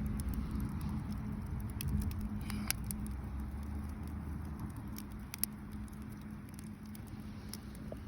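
Wood fire crackling: irregular sharp pops and snaps over a low steady rumble, with a couple of louder pops.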